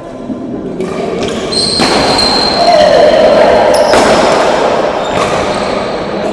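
Badminton rally in an indoor arena: several sharp racket hits on the shuttlecock, a high shoe squeak on the court about a second and a half in, and crowd noise rising in the middle.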